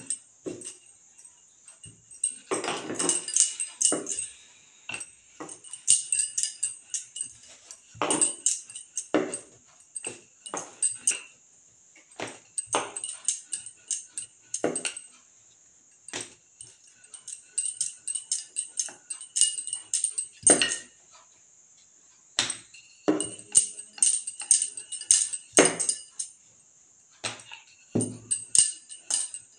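Bangles on the wrist jingling and clinking irregularly with each stroke, mixed with knocks of a wooden rolling pin on a wooden table while puri dough is rolled out.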